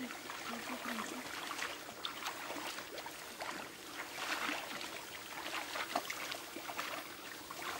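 Irregular rustling and light splashing as hands work through tall paddy grass and shallow water, a dense run of small crackles and splashes with no steady rhythm.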